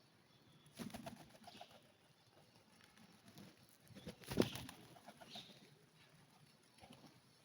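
Pigeons at a feeding spot: soft low cooing and shuffling, with a few knocks about a second in and a sudden sharp thump about four and a half seconds in.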